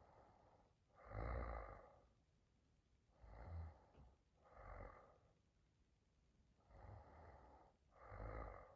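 A woman snoring faintly in her sleep: slow, regular breaths, five in all, each with a low snoring rumble, the loudest about a second in.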